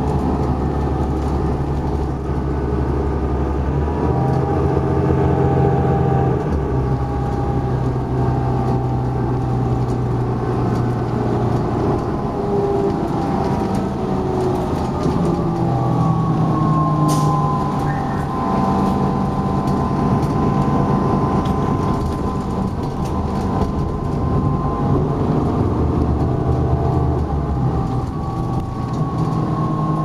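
Cummins ISL9 diesel engine and drivetrain of a 2011 New Flyer XD40 bus running under way, heard from inside the cabin as a steady drone. The engine note changes about four and six seconds in, and a thin whine comes in about halfway through.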